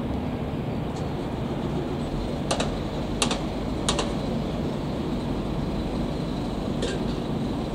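Steady low rumble of a Boeing 777-300ER's GE90 jet engines on final approach with the gear down. Four sharp clicks come through it, three between about two and a half and four seconds in and one near the end.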